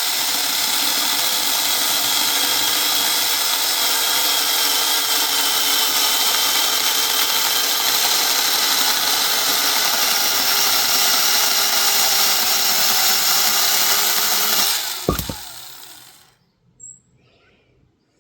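Cheap battery-powered mini chainsaw running steadily as it cuts through a tree trunk, managing the cut. About fifteen seconds in there is a sharp thud, and the motor then winds down and stops.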